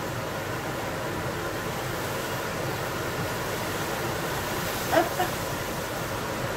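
White wine poured from a bottle into a hot enamelled cast-iron pot of sauerkraut, sizzling, over the steady whoosh of a running kitchen range hood. A short clink about five seconds in.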